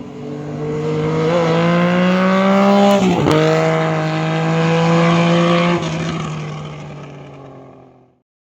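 A motor vehicle engine running at steady revs, its pitch dipping sharply for a moment about three seconds in, then fading away over the last couple of seconds.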